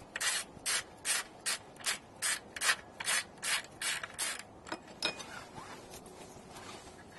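Socket ratchet wrench clicking through its back strokes, about two strokes a second, as a bolt holding the belt guide spindle is worked loose. The strokes stop about four and a half seconds in, followed by a couple of light clicks.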